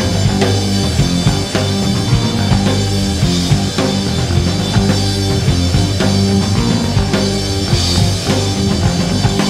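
Live rock band playing an instrumental passage: drum kit keeping a steady beat under electric bass and electric guitar.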